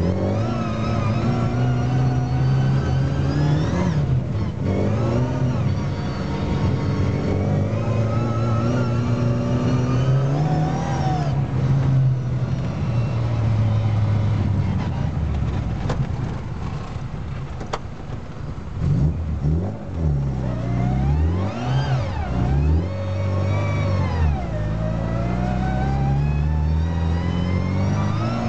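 Car engine heard from inside the cabin while driving through deep snow, its pitch rising and falling with the throttle. About two-thirds of the way through, the revs swing up and down several times in quick succession.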